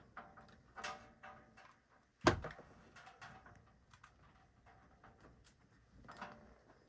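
Faint handling noises with one sharp knock a little over two seconds in.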